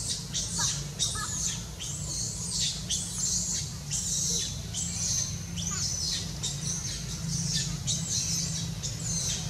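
Rapid high-pitched chirping animal calls, short downward-sweeping squeaks a few times a second throughout, over a steady low hum.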